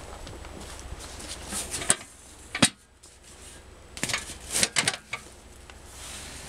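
Several sharp knocks and clicks of someone clambering onto a tractor seat and handling the controls, the loudest about two and a half seconds in, with a quick run of clatters between four and five seconds in; the tractor's diesel engine is not running.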